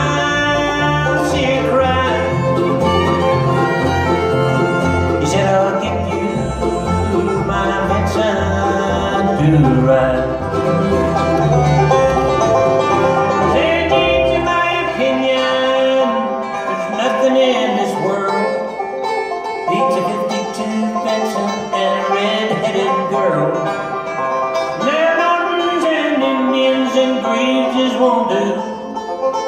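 Bluegrass band playing an instrumental break on banjo, fiddle, mandolin, acoustic guitar and upright bass. The low bass notes stop about halfway through while the strings play on.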